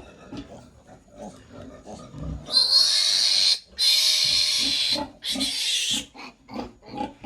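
Piglet squealing: three loud, shrill squeals of about a second each, starting about two and a half seconds in, with short soft grunts before and after.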